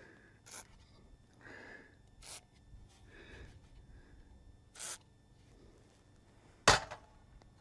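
Handling noises from work on a metal roof vent cap: four scattered sharp clicks and knocks, the loudest near the end, with soft scraping between them.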